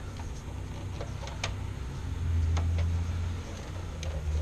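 Scattered light clicks and ticks of stiff insulated wires being bent and tucked inside an open breaker panel, over a steady low hum that swells for about a second near the middle.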